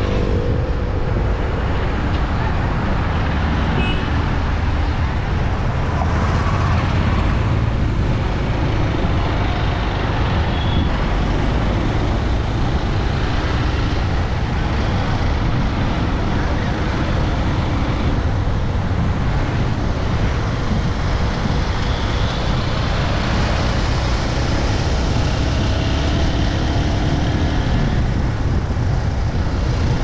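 Steady rush of wind and road noise from riding along a busy road, heaviest in the low end, with the faint engines of other vehicles passing now and then.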